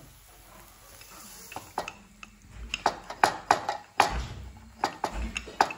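Rolling pin knocking and clacking on a wooden board as paratha dough is rolled out. A run of sharp taps starts about a second and a half in, with a few duller thumps among them.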